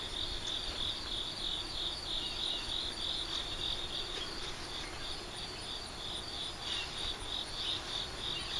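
Crickets chirping: a steady high-pitched pulsing chirp, about three chirps a second.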